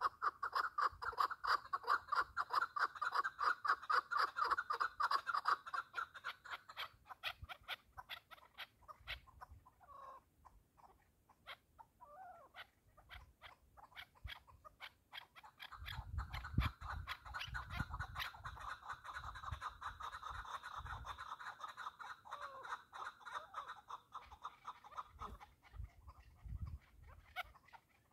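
Partridges calling in two long bouts of rapid, repeated clucking notes, with a few scattered notes between them. A dull low rumble sits under the second bout.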